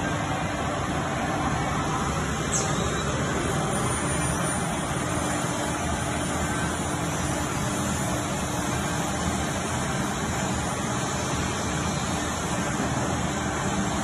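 Edge banding machine running, a steady mechanical whir with a faint hum and a brief high squeak about two and a half seconds in.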